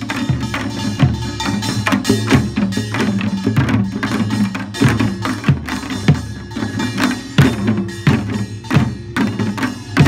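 A Korean pungmul folk percussion ensemble playing, with drums struck in a fast, dense rhythm over ringing metal gongs.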